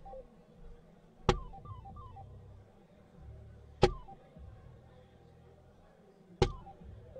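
Three soft-tip darts striking an electronic dartboard, one every two and a half seconds or so, each hit followed by short falling electronic chirps from the board as it scores; three chirps follow the first hit.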